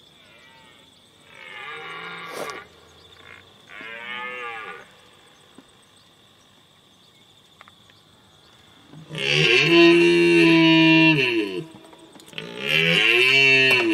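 Moo-like lowing calls of a bovid: two shorter, softer calls in the first few seconds, then two long, loud calls, one starting about nine seconds in and another near the end.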